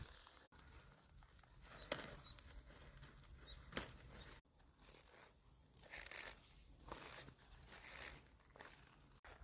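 Faint snapping and rustling of lettuce leaves being torn off by hand: two sharp snaps in the first half, then softer rustles.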